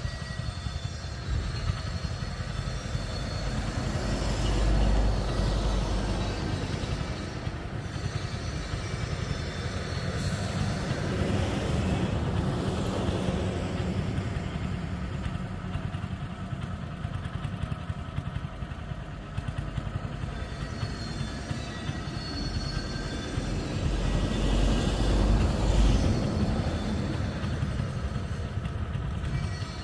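Engine of a walk-behind cultivator running steadily at idle, with two louder swells, about four seconds in and again about twenty-five seconds in.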